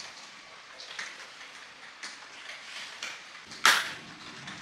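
Scattered light clicks and knocks of hand tools being worked on a portable petrol generator, with one loud sharp knock about three and a half seconds in.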